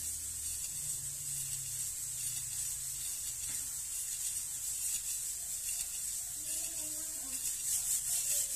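Rubbing hiss of a lapping rod with lapping paste being worked back and forth inside a gun barrel, polishing the bore from breech to muzzle.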